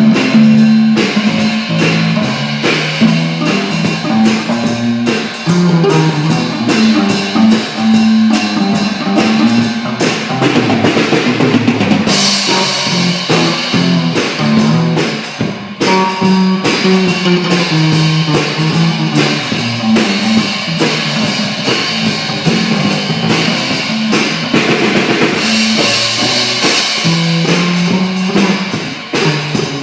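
Live rock band playing, with an electric bass line moving in steady stepping notes under a drum kit. The cymbals wash louder from about twelve to sixteen seconds in and again near the end.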